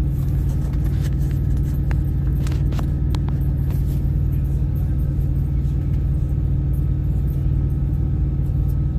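A vehicle engine running steadily: an even low rumble with a steady hum, and a few faint clicks in the first few seconds.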